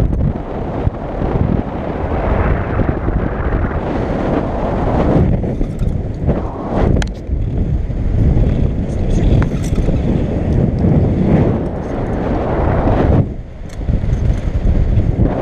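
Wind rushing and buffeting over the microphone in gusts during an unpowered paramotor glide with the engine failed, easing briefly near the end.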